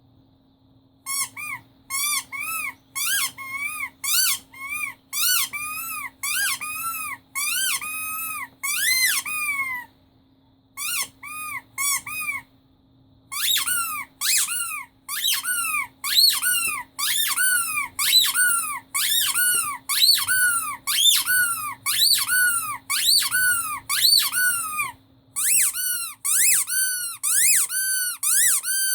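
Rubber squeaky toy being squeezed again and again, about two squeaks a second with a few short breaks; each squeak is a high, pitched note that rises and then falls.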